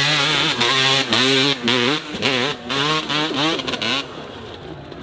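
Dirt bike engine revved hard. Its pitch swings up and down in quick bursts as the throttle is worked, with brief cut-outs, before it drops away about four seconds in.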